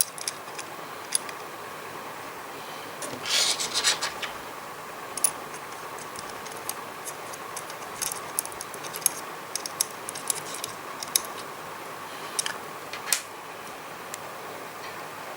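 Small clicks, ticks and scrapes of hard metal and plastic parts being handled as an Ulanzi Falcam quick release plate is fitted to a camera, with a longer scraping rattle about three seconds in.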